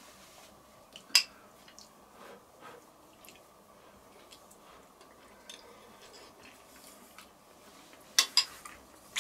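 Spoon clinking against a bowl while stew is tasted: a sharp clink about a second in, then two clinks in quick succession near the end, with faint scraping between.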